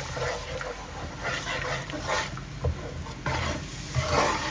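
Spatula stirring and scraping through a sizzling dark sauce with garlic cloves in a nonstick wok, in several separate strokes.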